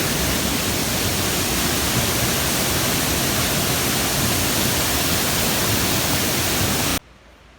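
Loud, steady rush of a waterfall and the river below it. It cuts off abruptly about seven seconds in.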